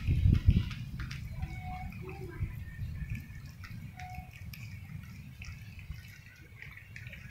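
Several cats eating wet food from bowls: scattered wet smacking and clicking of chewing and licking. A low rumble is heard in the first half second.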